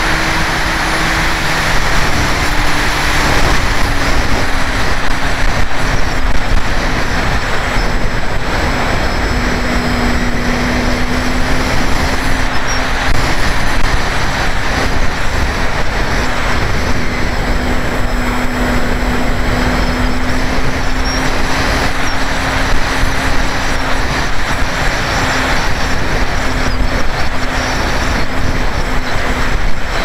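Extra 330SC model plane in flight, heard from a camera on its wing. Loud wind rush over the microphone, with a steady propeller tone that dips slightly in pitch early on and then holds.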